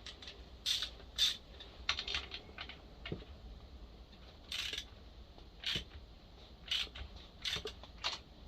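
Light metallic clinks and short scrapes, about a dozen at irregular intervals, from a 19 mm socket and tools being worked against a spark plug thread repair insert in a chainsaw cylinder head.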